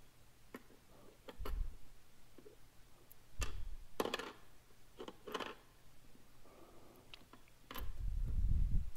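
Small metal sewing-machine bobbins and shuttle hooks being handled: scattered light clicks and taps, a few with a low bump, and a low rumble lasting about a second near the end.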